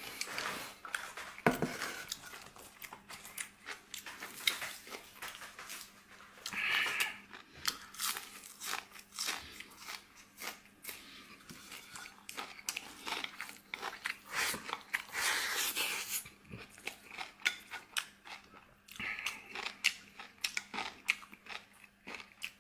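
Close-miked chewing and biting, many small wet clicks and crunches, of a person eating tomato-braised pork ribs with rice.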